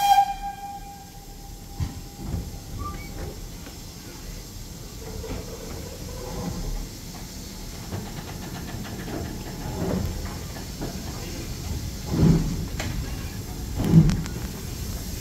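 BR Standard Class 2MT 2-6-0 steam locomotive 78022: a short steam-whistle blast cuts off in the first second. The engine then starts away, with slow, widely spaced exhaust beats about 12 and 14 seconds in.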